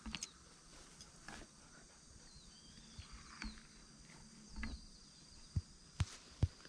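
Faint countryside ambience: a steady high-pitched insect drone with short descending chirps over it. Near the end come a few sharp clicks.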